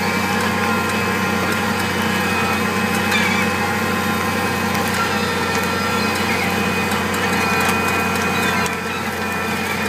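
Massey Ferguson 6490 tractor engine running steadily while pulling a six-furrow plough, dipping slightly in level near the end.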